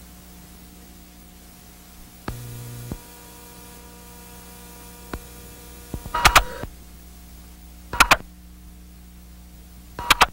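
Steady mains hum and hiss from old videotape playback, with a few sharp clicks and three short, loud bursts of noise about six, eight and ten seconds in.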